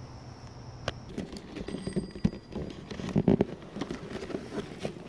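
Giant mountain bike being ridden along a dirt singletrack trail: an irregular clatter and knocking of the bike over the bumps, starting about a second in and loudest around three seconds in.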